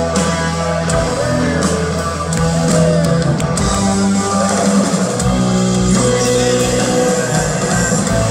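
A live rock band playing loudly on electric guitar, electric bass and drums.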